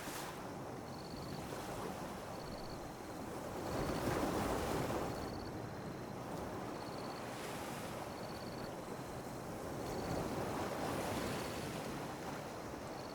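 Calm sea waves lapping on a beach, swelling twice, about four and ten seconds in. A faint short high chirp repeats every second or so.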